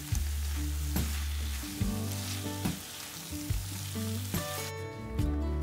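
Chicken and mushrooms in a cream sauce sizzling in a frying pan as they are stirred with a spatula, with a few sharp scrapes and clicks. Background music plays throughout, and the sizzling drops out near the end, leaving the music alone.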